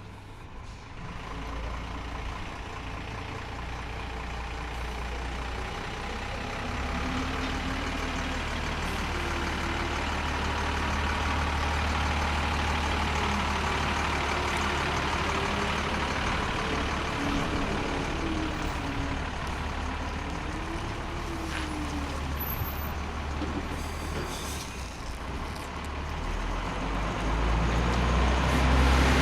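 Old truck or bus engine idling with a steady low hum, its pitch rising and falling in places as it is revved, and growing louder near the end.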